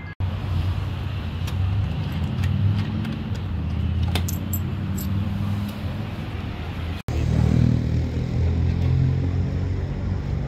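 A double-decker bus on the move, heard from inside: a steady low engine and road rumble with light clinks and rattles over it. The sound cuts out abruptly twice, just after the start and about seven seconds in.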